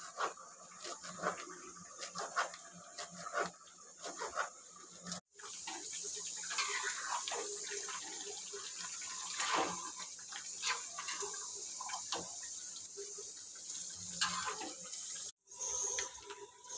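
A knife chopping fresh coriander on a plastic cutting board, a quick irregular run of sharp taps. About five seconds in, this changes to chicken curry simmering in a steel kadai with a steady hiss while a spatula stirs and scrapes through it.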